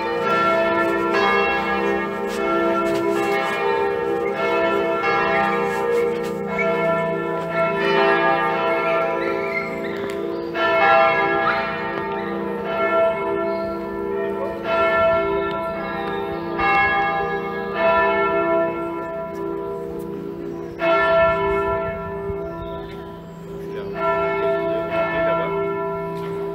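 Church bells pealing: several bells struck one after another about once a second, each ringing on so that the tones overlap, with a couple of short pauses in the sequence.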